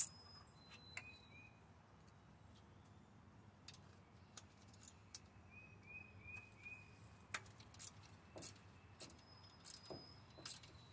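Faint bird chirps: thin high whistled notes near the start and again near the end, and a quick run of four chirps about midway. A few light clicks are scattered through.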